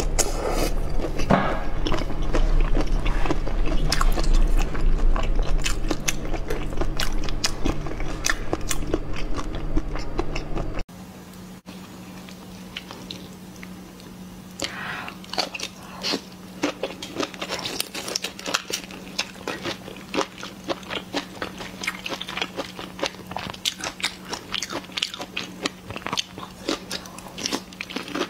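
Close-miked biting and chewing of large prawns in chili sauce, with crisp crunches from the shells. After a sudden cut about eleven seconds in, the chewing goes on quieter as sharp, crisp clicks over a low steady hum.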